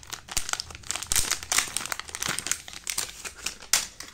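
Plastic packaging crinkling as it is unwrapped by hand, in quick irregular crackles.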